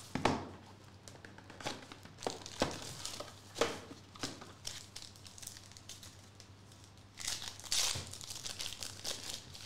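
Foil wrapper of a Topps Inception baseball card pack crinkling in the hands, then torn open with a longer, louder rip near the end.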